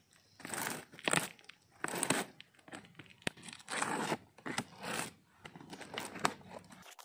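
Packing tape being slit and ripped off a cardboard shipping box, with the cardboard flaps rustling and scraping as they are pulled open: a run of short, noisy rips and rustles.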